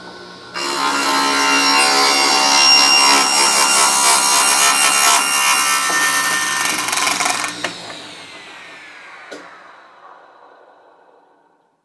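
Table saw running with its blade being wound up through a wooden zero-clearance throat plate, cutting its own slot in the insert: a loud sawing noise over the motor hum from about half a second in until about seven and a half seconds. The saw is then switched off and coasts down with a falling whine that fades out.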